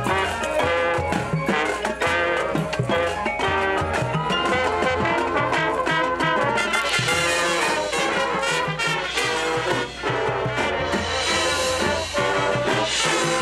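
High school marching band playing: brass winds over drums and keyboard percussion, loud and continuous.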